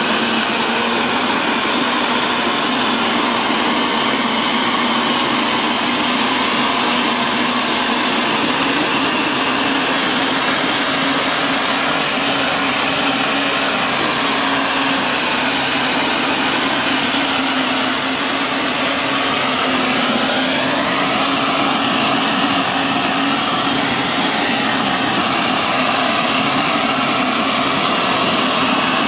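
Compressed-air spray gun shooting mortar onto a concrete wall: a loud, steady rushing hiss, with machinery running underneath whose tone shifts in pitch about two-thirds of the way through.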